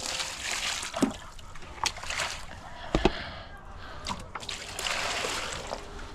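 Water sloshing and splashing in irregular bursts, with a few sharp knocks about one, two and three seconds in.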